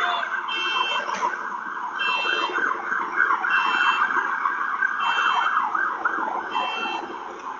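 Electronic siren warbling rapidly and continuously, with a short high beep repeating about every one and a half seconds.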